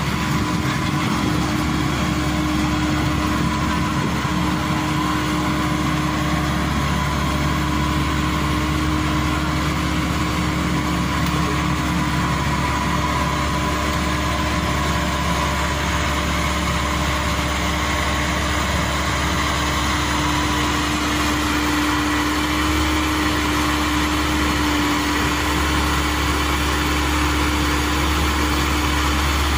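Maxxi Bimo 102 crawler combine harvester's diesel engine running steadily at a constant pitch as the machine creeps forward under its own power.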